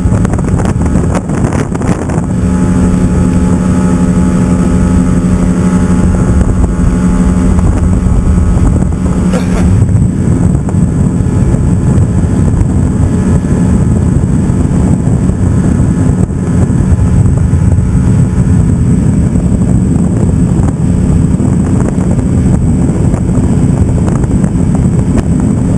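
Motorboat engine running steadily at speed across choppy water, with wind buffeting the microphone. The engine's even hum gives way to a rougher rushing noise about ten seconds in.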